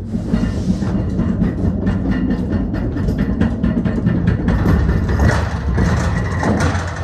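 Manual pallet jack hauling a loaded pallet across the textured floor of a box truck's cargo bay. Its wheels make a loud, rattling rumble that builds as the jack passes close by about four to five seconds in.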